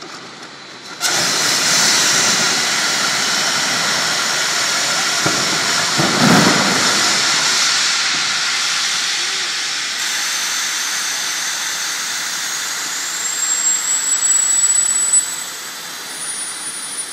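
Airbus A330 door evacuation slide inflating. About a second in, a loud rushing hiss starts suddenly as the compressed-gas bottle fires and the aspirators draw in air. It swells heavier about six seconds in as the slide unfolds, and a thin whistle rises near the end before the hiss drops off sharply.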